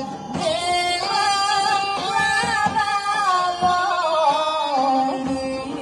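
Rhodope folk song played live: a woman singing with a bagpipe ensemble of kaba gaidas and a tapan drum, heard through the stage loudspeakers. The ornamented melody is held, then steps down in pitch in the second half.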